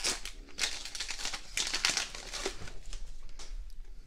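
Foil trading-card pack being crinkled and torn open, with the cards then slid out and handled: a run of irregular rustles and crinkles.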